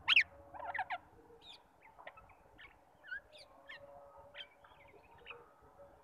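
Rose-ringed parakeets calling: a loud, sharp screech right at the start and a quick cluster of calls just before a second in, then scattered short, softer chirps.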